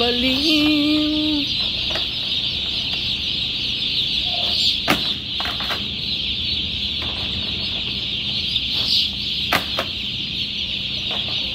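Massed, steady high-pitched peeping of a large flock of broiler chicks, with a few sharp knocks of plastic chick crates being handled around the middle. A voice sings a held line in the first second or so.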